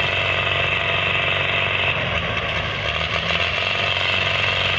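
Two Belarus tractors' diesel engines running steadily under load, hitched in tandem and straining to pull a stuck trailer heavily loaded with sugarcane.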